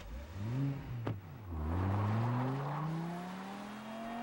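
A car engine revs briefly, then accelerates away with its pitch climbing steadily. There is a sharp click about a second in.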